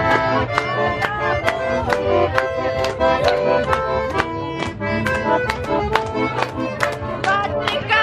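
Button accordion playing a lively dance tune: held melody notes and chords over a quick, regular beat.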